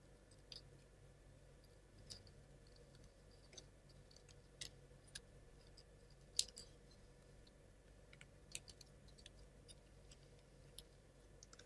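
Sparse light clicks and taps of laser-cut plywood model parts being handled and fitted together, the sharpest about six seconds in, over a faint steady hum.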